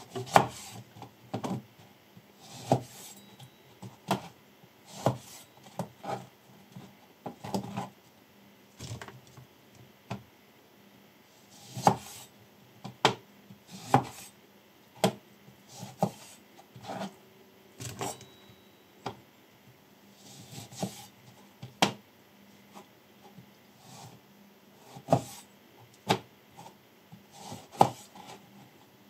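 Chef's knife slicing through lemons, with the blade tapping down on a cutting board about once a second, sometimes in quick pairs, with a little juicy squish as it cuts.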